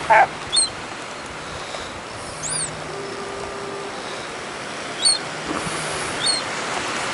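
Steady background noise of traffic or surf, with short high bird chirps every second or so and one louder short call right at the start.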